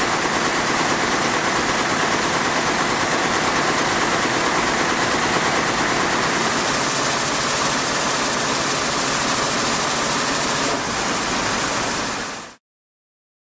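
Weaving looms running together: a steady, dense mechanical clatter that cuts off abruptly near the end.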